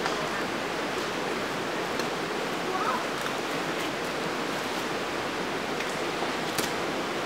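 Creek water rushing steadily over a rocky bed, with a few faint clicks near the end.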